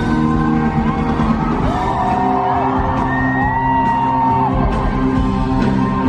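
Live rock band playing in a large concert hall, heard from the audience: electric guitar, bass and drums under a dense, steady wash of sound, with long held notes that rise and fall, about two and three seconds in.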